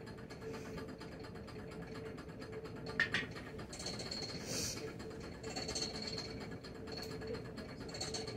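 Steady background hum with a faint high whine, a single sharp click about three seconds in, and a few brief soft hisses.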